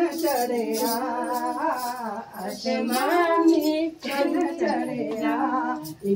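A woman singing unaccompanied, with no instruments, for the others to dance to.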